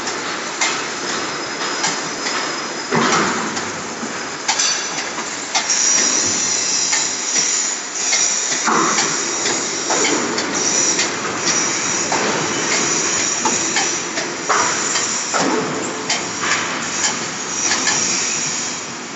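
Downspout elbow-forming machine working a rectangular downspout: irregular metal clanks every second or two as its dies press and crimp the pipe into a bend, over a steady machine noise with a high whine.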